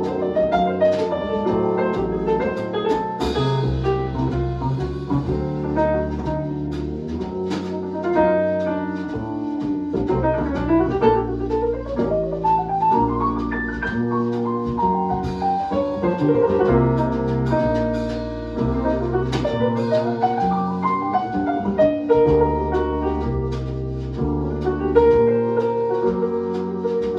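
Instrumental jazz-style music with piano and drums, and a few rising glides in pitch.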